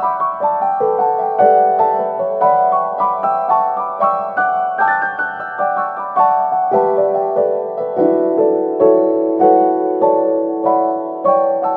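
Background piano music: a gentle melody of single notes, a few a second, each struck and fading.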